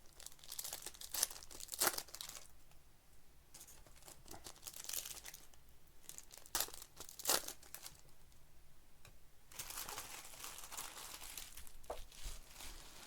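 A Panini Absolute football trading card pack's wrapper being torn open and crinkled, with a few sharp rips about a second in and again around six to seven seconds in, then a longer rustle near the end as the cards are handled.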